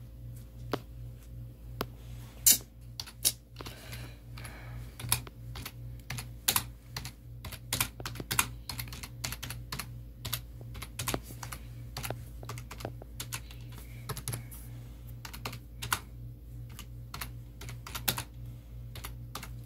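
Computer keyboard being typed on: irregular, unhurried keystroke clicks, one sharply louder about two and a half seconds in, over a low steady hum.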